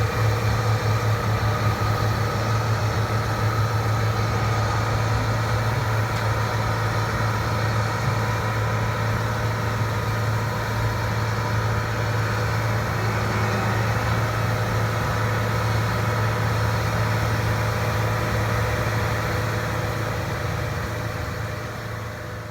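Caterpillar AP655D asphalt paver's diesel engine running steadily, a deep hum with an unchanging pitch. The sound fades down near the end.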